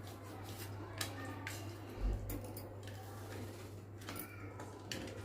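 A knife cutting slits into raw chicken leg pieces, with scattered sharp clicks and taps of the blade and a dull thump about two seconds in, over a steady low hum.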